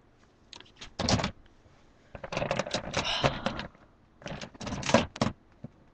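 Plastic action figures clicking and clattering as they are handled and sorted in a storage bin, in quick irregular clusters.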